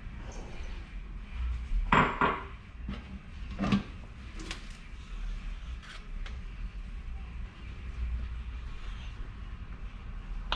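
Kitchen knife knocking on a cutting board while slicing hot dogs: a few separate knocks, the loudest about two seconds in, over a low steady hum.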